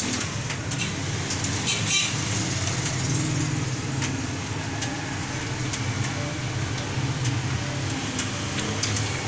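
Steady low engine rumble of a motor vehicle, with scattered sharp clicks above it.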